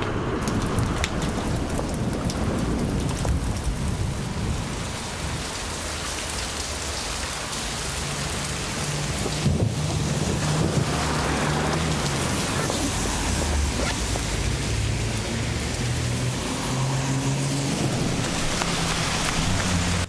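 Heavy rain pouring down, a steady hiss of downpour, with a low rumble underneath in the second half.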